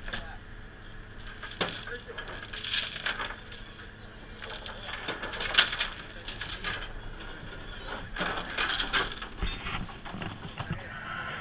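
Steel rings and chain of a scallop dredge's ring bag clinking and jangling against each other as they are handled, in several irregular bursts.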